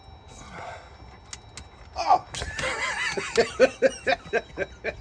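A person laughing hard: a quick run of repeated "ha" bursts that starts about two seconds in, after a couple of quiet seconds with a few faint clicks.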